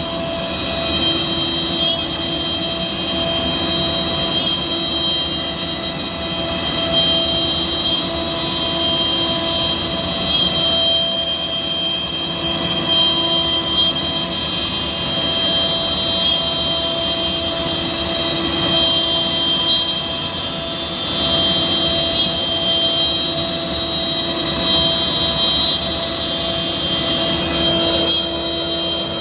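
Thermwood CNC router's spindle running and cutting grooves into a wooden sheet: a steady high whine over the rough noise of the cut.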